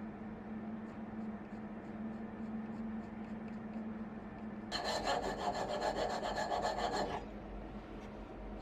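A handsaw cutting wood: about two seconds of rapid rasping strokes midway through, over a steady low hum.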